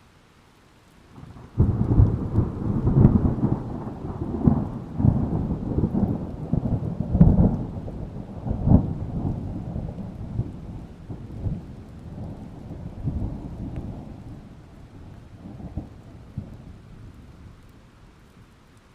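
A thunderclap breaks suddenly about a second and a half in and rolls on as a long rumble with repeated sharp cracks, slowly dying away near the end. Steady light rain falls underneath.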